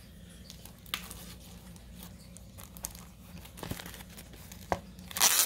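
Paper sheets and packaging being handled: rustling with a few light taps, then a short, loud crinkle near the end.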